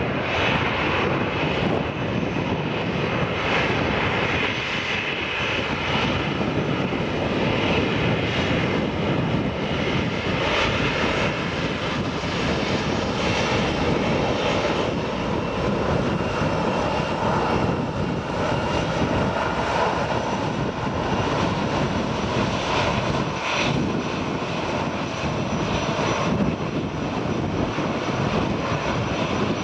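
Airbus A321-200 jet engines running at low power as the airliner taxis past: a steady jet rush with a faint high whine.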